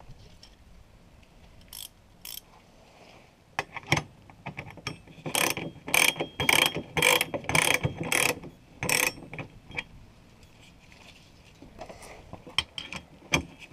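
Ratcheting ring spanner clicking as it tightens a nut onto a stud through the car's floor pan. There are a few scattered clicks, then a run of about eight loud clicks at roughly two a second in the middle, and a few more near the end.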